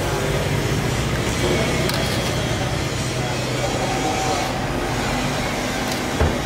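Steady low rumble and hum of background noise, with indistinct voices.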